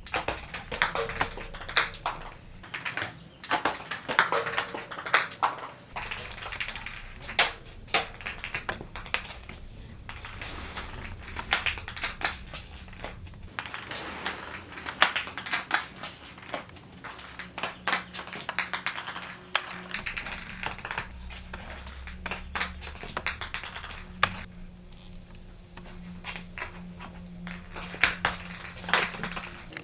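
Ping pong balls being batted by kittens, clicking and bouncing irregularly on a tile floor, many light hollow taps in quick succession.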